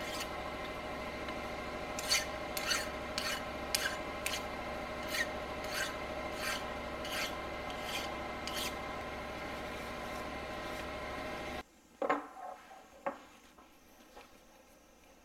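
Hand file scraping along the edges of a metal block to deburr it, in a run of strokes about every half second, over a steady hum. After a sudden drop in level near the end come two sharp metal knocks as the block is set into a machine vise.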